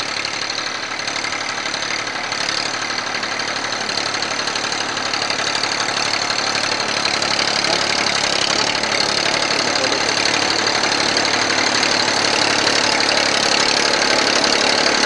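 Diesel tractor engine running steadily under load as it pulls a reversible plough, growing gradually louder as the tractor comes closer.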